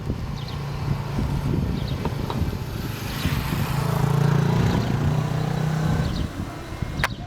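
A vehicle passing by: a steady low hum with a broad swell that builds, peaks about halfway through and fades, over wind buffeting the microphone, with one sharp click near the end.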